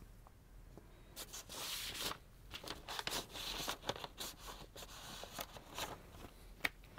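Cardboard LP jackets and record sleeves being handled: a run of soft sliding, scraping and rustling, with a few light taps.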